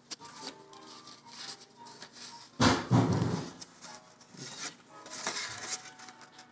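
Paper rustling and handling as folded paper booklets are taken out and opened, with a louder rustle and bump about two and a half seconds in.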